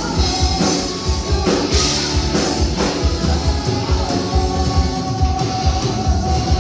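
Live heavy metal band playing loud: distorted electric guitar, electric bass and a pounding drum kit keeping a steady beat. A long held note comes in about four seconds in.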